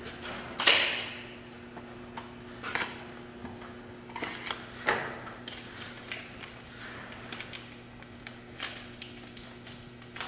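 Gloved hands handling new piston rings and their paper packaging at a bench: irregular light clicks, ticks and rustles, with a sharper knock under a second in. A faint steady hum runs underneath.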